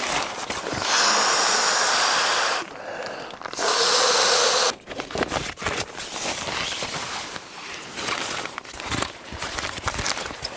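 Two long breaths blown hard into the valve of an inflatable sleeping mattress, each a steady rush of air, the second shorter. Then the nylon mattress rustles and crinkles as it is handled.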